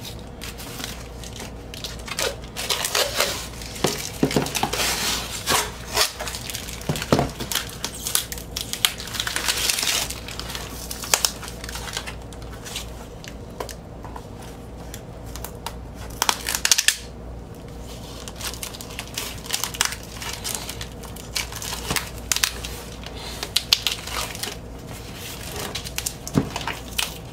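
Clear packing tape being picked at and peeled on a cardboard vinyl-record mailer, with a run of irregular crackles and scrapes as the mailer is handled and moved against the desk.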